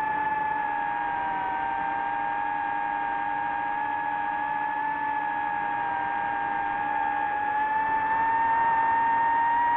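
DJI FPV drone's motors and propellers whining steadily in flight. The pitch wavers a little with the throttle, then rises slightly and gets louder near the end.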